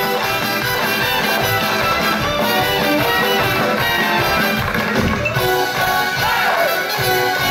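Lively orchestral show music, played loud and steady.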